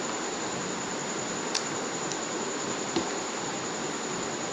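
Wooden spoon scooping cream-coated fruit salad from a bowl, with two light clicks of the spoon against the bowl, about a second and a half in and about three seconds in. Behind it runs a steady hiss with a thin high whine.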